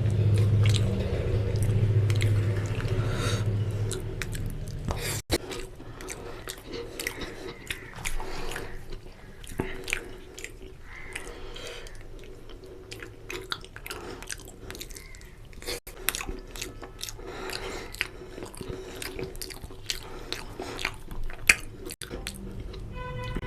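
Close-miked chewing and biting of mutton lung and intestine curry with puri: many short, irregular wet mouth clicks. A low hum sounds through the first few seconds.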